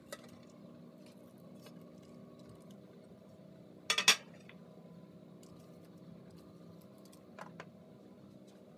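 A clear glass tray used as a cover is lifted off a baking tray, clattering loudly against it about four seconds in, with a lighter knock later. A faint steady hum runs underneath.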